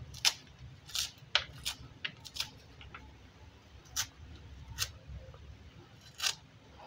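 A kitchen knife cutting and paring into a horn plantain corm gives short, crisp crunching cuts at irregular intervals as pieces of leaf sheath are sliced off.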